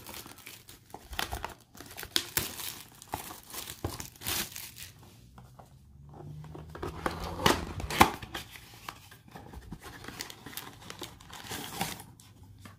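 Hands tearing open a cardboard blaster box of Panini Illusions football cards: irregular crinkling and tearing of the packaging, sharpest about eight seconds in.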